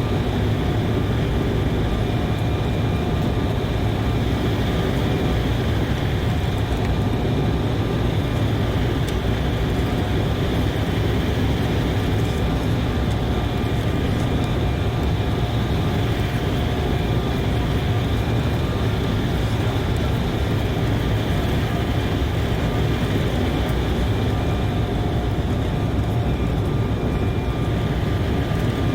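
Steady cabin noise of an Embraer E190 airliner in flight: the rush of airflow and the hum of its two General Electric CF34-10E turbofans, with a few steady high engine tones over a low rumble.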